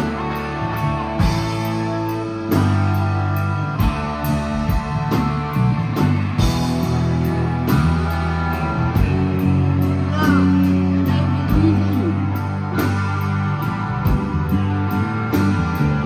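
Live rock band playing at full volume: distorted electric guitars over bass and a drum kit keeping a steady beat, with a few bent guitar notes partway through.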